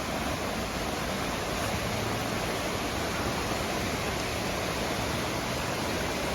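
Steady rushing of fast-flowing water, a creek or river running over rocks, as an even, unbroken hiss.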